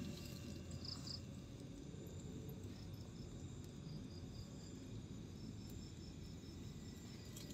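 Crickets chirping faintly: two high chirps about a second in, then a steady run of evenly spaced chirps, about four a second.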